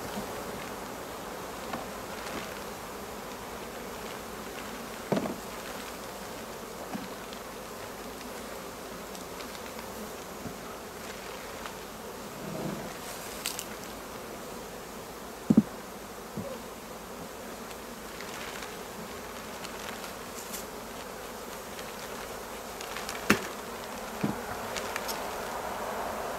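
Honeybees buzzing steadily around an open hive crowded with bees, with a few sharp knocks and clicks, the loudest about fifteen seconds in and again about twenty-three seconds in.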